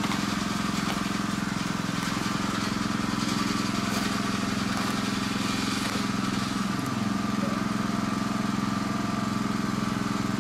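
A steady low mechanical hum, like a motor running at a constant speed.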